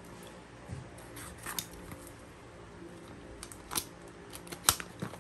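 Scissors snipping at parcel packaging: a handful of short, sharp snips and clicks, the loudest about four and a half seconds in.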